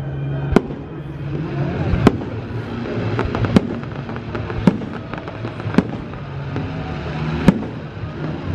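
Aerial firework shells bursting overhead: about six sharp bangs, one every second or so, over a steady background din.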